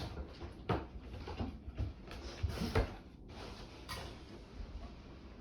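Handling noise: a handful of separate knocks and bumps over a low rumble.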